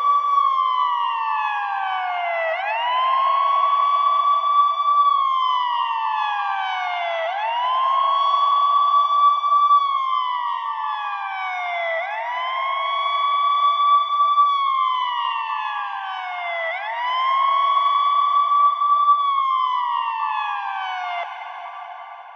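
Ambulance siren in a slow wail: each cycle sweeps up quickly, holds the high note, then slides slowly down, repeating about every four and a half to five seconds. It fades away near the end.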